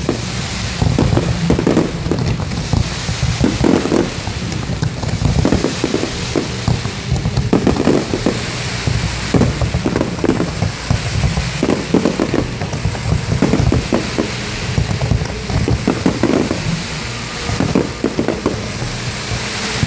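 Fireworks going off in quick succession, a dense run of bangs and crackling bursts with no let-up.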